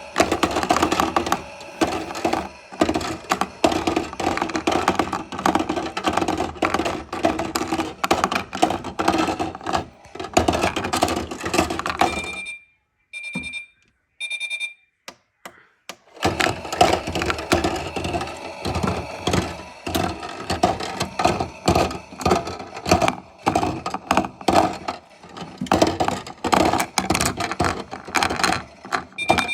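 Dense, rapid rattling clatter that stops for a few seconds about halfway. In the gap comes a series of short high electronic beeps, the kind a Miele washing machine's control panel gives.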